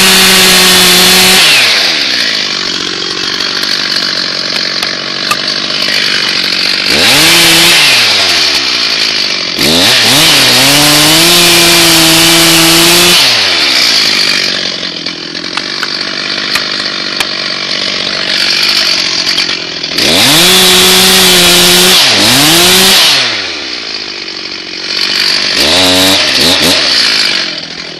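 Stihl MS361 two-stroke chainsaw run at full throttle in five bursts of one to three seconds, its pitch falling away toward idle between bursts.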